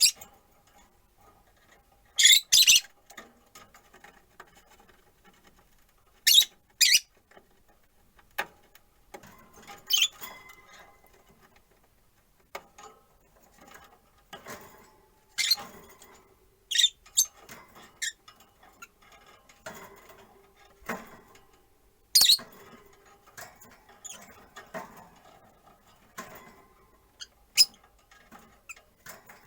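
Rosy-faced lovebirds giving short, sharp, high-pitched chirps every few seconds, some in quick pairs, with softer chatter between.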